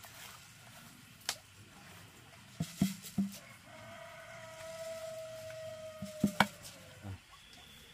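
Sharp knocks and taps of hard objects being handled: one, then a quick cluster of three, then two close together and a last one near the end. Through the middle a long steady pitched tone with overtones is held for about three seconds and dips slightly as it ends.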